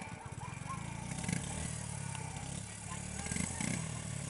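ATV engine running steadily at an even pitch.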